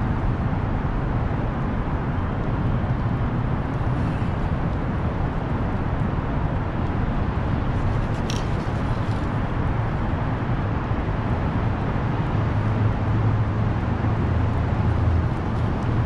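Steady low motor hum under a noisy wash, level throughout, with a few faint clicks about halfway through.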